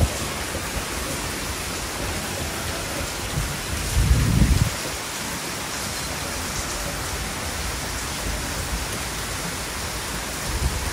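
Heavy rain pouring steadily, with a brief low rumble about four seconds in.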